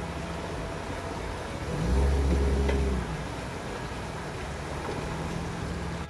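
A four-wheel drive's engine revving up and easing off as it drives through a rocky river crossing, loudest about two seconds in, over the steady rush of the fast-flowing water.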